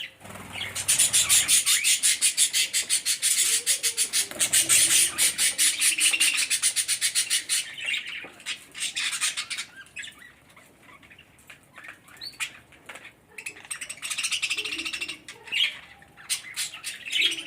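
Pet budgerigars chattering and squawking. A fast, continuous run of sharp chirps fills the first half. After it come quieter, scattered calls, and a second burst of chatter near the end.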